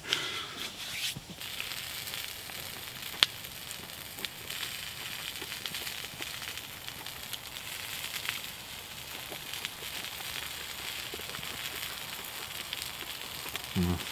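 Wood campfire crackling with a steady faint hiss and scattered pops, one sharp pop about three seconds in.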